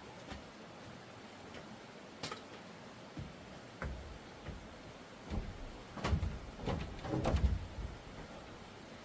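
A few light clicks, then a cluster of dull knocks and thumps in the second half, like something being handled or a door or cupboard being moved.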